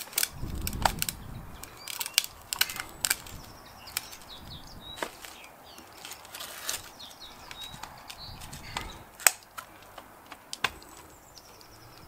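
Irregular sharp clicks and knocks of handling, with a low rumble near the start and again about nine seconds in; the rotary hammer is not running.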